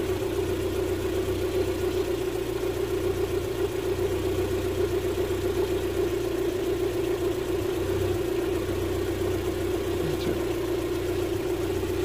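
Land Rover Freelander's 1.8 K-series four-cylinder petrol engine idling with a steady hum. The idle is rough, which the technician puts down to a faulty camshaft position sensor sending the injectors into group fire.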